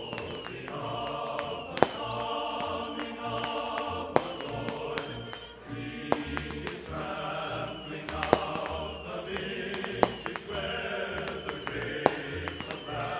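Choral music with many voices singing, punctuated by sharp bangs about every two seconds.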